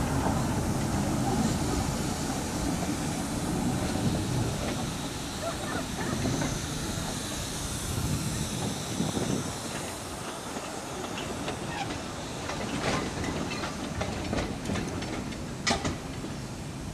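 Narrow-gauge steam train rolling away along the track, its running noise and wheel clatter fading as it recedes. A few short sharp clicks come near the end.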